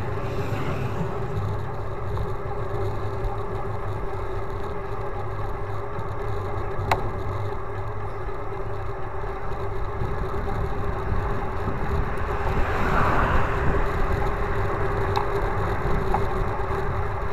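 Wind and road noise from riding a road bicycle on asphalt, heard through a handlebar-mounted action camera: a steady rumble with a constant hum, two sharp ticks about eight seconds apart, and a short swell of hiss partway through.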